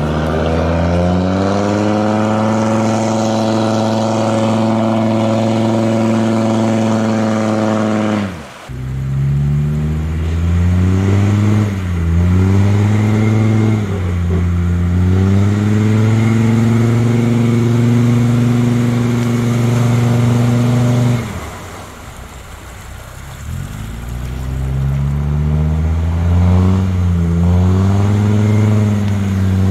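Land Rover Discovery TD5's five-cylinder turbodiesel revving hard and held at high revs under load in deep mud. The revs climb in the first couple of seconds and hold steady, break off sharply about eight seconds in, and come back with a few quick throttle lifts. About two-thirds through they drop away for a few seconds, then build up again.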